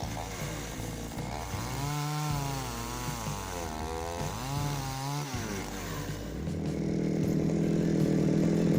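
Chinese petrol chainsaw with a freshly sharpened chain cutting wood under load. The engine's pitch sags and recovers twice as the bar is pressed in, then it runs at high, steady revs, loudest near the end.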